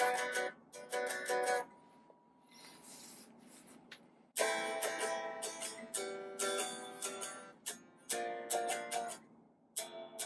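Solid-body electric guitar strummed in short chord stabs. About two seconds in it drops to quieter, scratchy muted strumming, then a longer run of chords starts near the middle.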